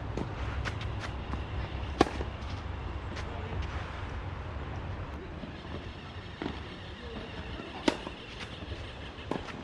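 Tennis ball struck by rackets during a rally: sharp pops a few seconds apart, the loudest about two seconds in and another strong one near the end, over a low steady rumble.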